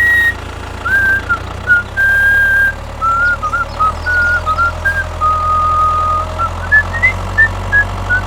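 A whistled tune, one clear note at a time, mixing short notes with a few held ones, over a steady low hum that grows a little louder about halfway through.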